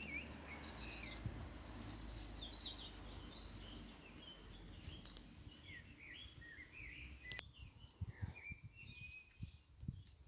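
Songbird singing outdoors, a run of varied short chirps and whistles that thins out near the end, over a faint low rumble of background noise.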